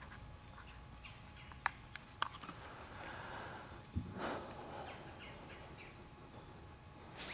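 Quiet outdoor background with two faint sharp clicks, then a knock and a brief rustle about four seconds in as the camera on its mount is moved.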